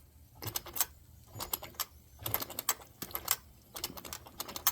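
Small model steam engine running, with a light mechanical clatter: clusters of quick clicks and ticks coming about once a second.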